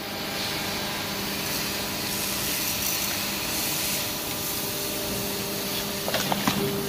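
Hydraulic scrap baling press running, its power pack giving a steady hum and hiss as the ram pushes a compressed bale of scrap metal out of the chamber. A short burst of sharp metallic clicks comes near the end, as the bale comes free of the opening.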